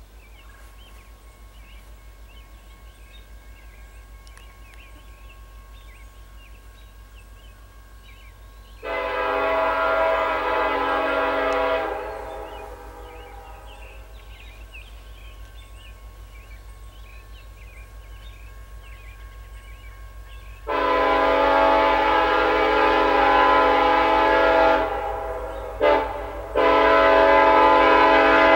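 Diesel locomotive air horn on an approaching freight train, a many-toned chord sounded as long, long, short, long: the standard warning for a grade crossing. Between the blasts a faint low rumble of the still-distant train carries on.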